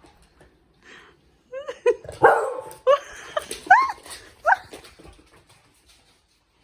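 Dog barking and yipping in play: a quick run of short, high yips, several rising then falling in pitch, with a rougher bark among them, for about three seconds from a second and a half in.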